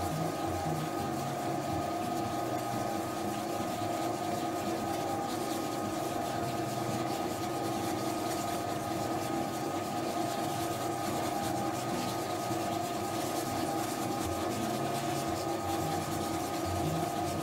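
Spiral dough mixer running steadily, its motor giving a constant hum and whine while the spiral hook churns a soft, wet, 70%-hydration pizza dough around the steel bowl. The dough is still being kneaded up to strength.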